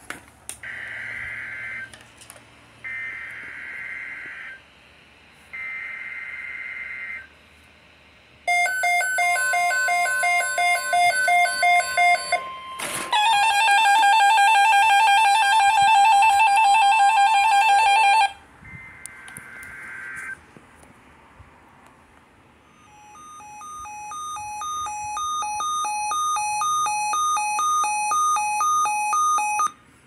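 Emergency Alert System tones for a tornado watch. First come three short screeching data bursts of the coded header. Then a steady alert tone mixed with rapid beeping runs for about four seconds, followed by a louder, harsher attention tone for about five seconds and a single closing data burst. In the last seconds a radio's rapid two-pitch beeping alarm grows steadily louder.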